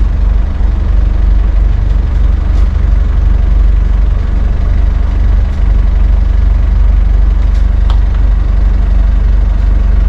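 A sailing yacht's inboard engine running steadily at low revs, a loud, even low drone.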